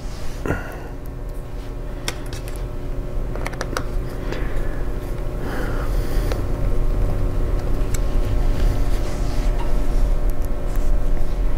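Scattered light clicks and small clatters of a screwdriver and small parts as laptop cooling fans are screwed back into place, over a steady low hum.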